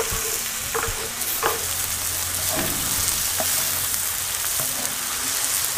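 Diced potatoes, onions and freshly added chopped tomatoes sizzling steadily in oil in a wide, shallow metal pan, with a few scrapes and taps of a wooden spatula stirring them.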